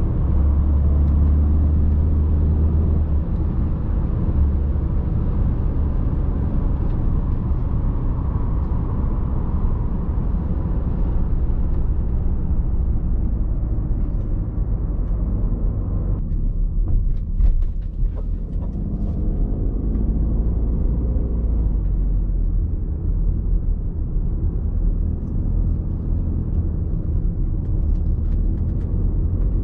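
Audi A6 C6 2.0 TDI four-cylinder diesel running under way, with steady tyre and road noise. The road noise drops briefly about 16 seconds in, with a few clicks, then the engine note rises again.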